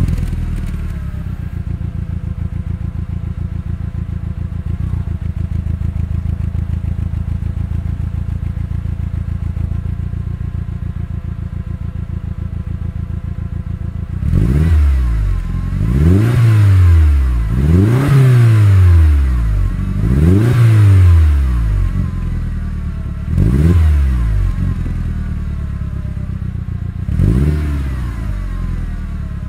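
Turbocharged Audi TT engine heard at the exhaust tip through the exhaust with its muffler still fitted: a steady idle, then, about halfway through, about six rev blips that each rise and fall back to idle.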